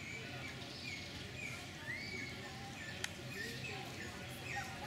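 Animal chirps: many short, high squeaky calls and little rising and falling whistles, one arching call a little before two seconds in, over steady background noise, with one sharp click about three seconds in.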